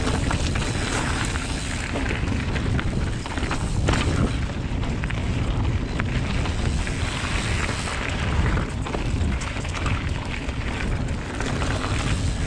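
Giant Trance X mountain bike rolling fast over a dirt trail, a steady rumble of tyres and suspension with frequent small knocks and rattles, and wind buffeting the GoPro's microphone.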